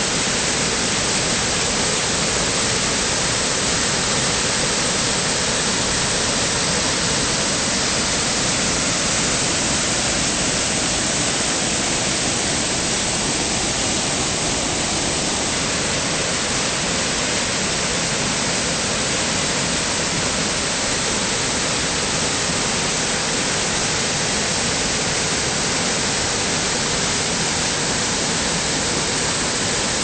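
Waterfall: a loud, steady rush of falling water with no change throughout.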